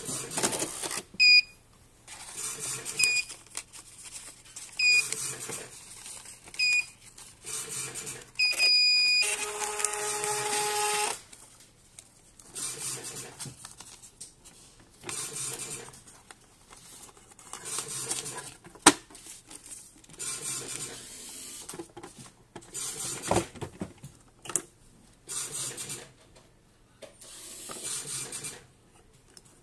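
A 76 mm dot-matrix receipt printer beeps five times, about once every two seconds, the last beep held a little longer, then its mechanism buzzes steadily for about two seconds. After that come scattered clicks, a few sharp knocks and rustling as the printer is handled and a paper roll is loaded.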